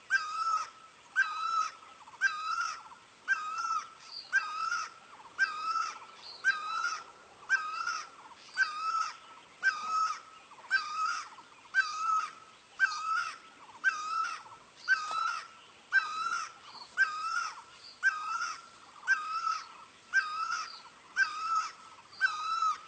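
Great barbet calling: the same short, bending call repeated steadily about once a second.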